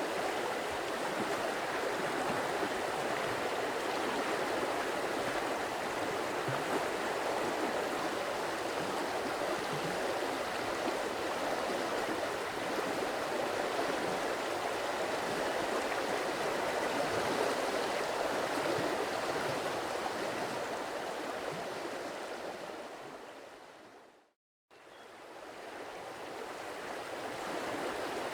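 Stream water running steadily. About three quarters of the way through it fades out to a moment of silence and then fades back in, where the looped recording restarts.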